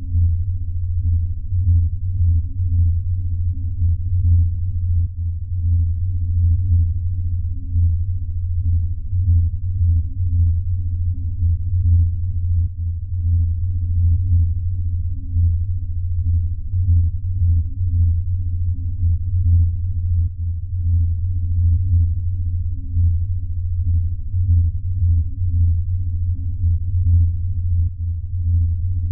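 Dark ambient music: a deep, steady low drone that wavers in loudness, with nothing above a low rumble.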